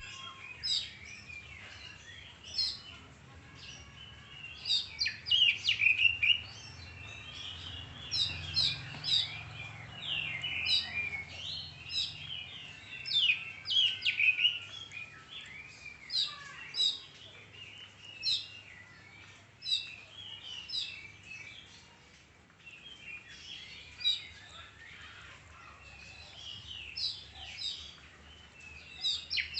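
Oriental magpie-robin (kacer) singing: short, varied phrases of high whistles and chirps that follow one another every second or two, with a brief lull about two-thirds of the way through.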